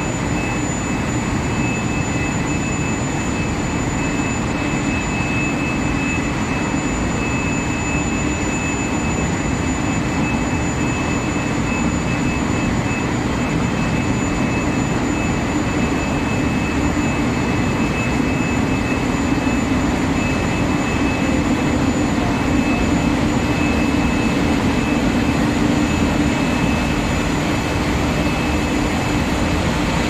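Induction quenching and tempering line for steel bar running: a steady machine hum with two constant high-pitched whines over it.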